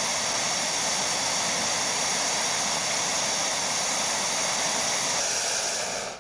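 Hot air balloon's propane burner firing in one long, steady, loud blast that cuts off near the end.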